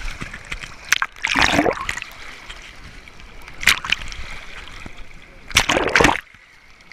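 Water splashing and sloshing in bursts: one about a second in, a short one near the middle, and the loudest around five and a half seconds.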